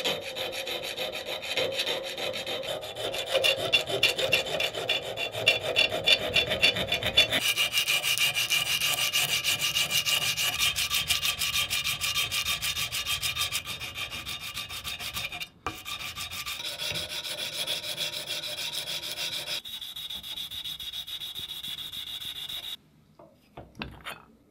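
Hand file rasping back and forth across a small metal part held in a vise. About seven seconds in it changes to a cloth-backed abrasive strip pulled rapidly to and fro over the part, a denser, faster rubbing. It stops abruptly near the end.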